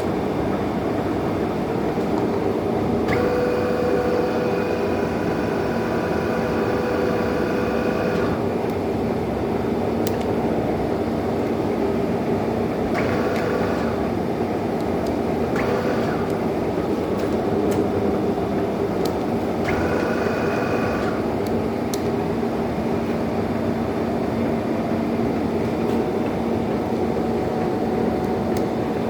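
1M63 heavy engine lathe running with a steady mechanical drone. A higher gear whine comes in three times, for a few seconds each.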